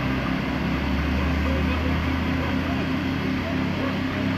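A vehicle engine running steadily, a low, even hum with no change in speed.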